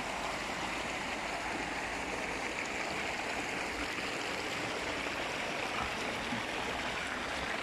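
Steady rush of water pouring from inlet pipes and splashing into concrete trout ponds.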